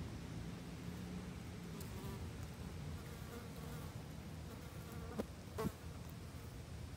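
An insect buzzing, a faint wavering hum that comes and goes, over a steady low rumble. Two sharp clicks come close together about five seconds in.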